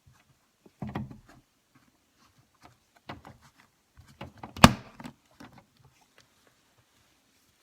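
Plastic window crank and its wire snap ring being handled and pressed together on a door panel: a scatter of small clicks and knocks, with one sharp snap about four and a half seconds in.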